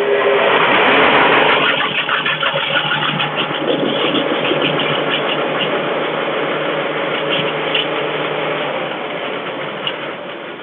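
Foley Belsaw 9103 planer-moulder's 5 HP single-phase electric motor and cutter head running just after switch-on, a steady machine hum with a loud rattle. The machine shakes and rattles, which the owner puts down to drive belts that probably need tightening.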